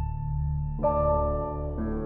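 Background music: a slow ambient piece with sustained ringing notes over a low pulsing drone. A new chord of notes comes in about a second in, and another near the end.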